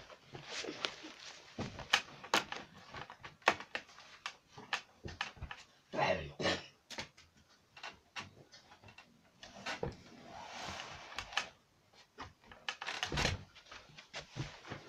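Handling noise close to a phone's microphone: scattered sharp clicks and knocks with bursts of rustling as the phone is set up and propped in place and someone moves about beside it.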